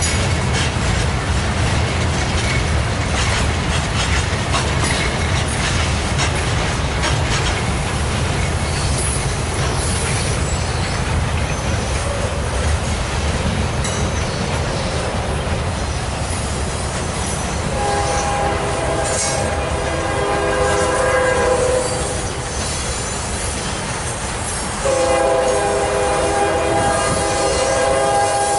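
CSX freight train of boxcars and a tank car passing close by, a steady rumble with the clickety-clack of wheels over rail joints. About 18 seconds in, a train horn sounds a long blast, and a second blast starts about 25 seconds in, louder.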